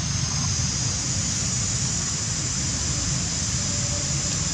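Steady outdoor background noise: a low, uneven rumble like wind on the microphone under a constant high hiss, with no distinct events.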